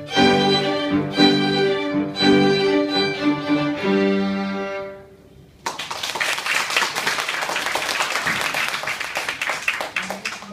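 Violin ensemble playing the last bars of a Chinese New Year tune, ending on a long held chord that fades away about five seconds in. Audience applause then breaks out suddenly and carries on steadily.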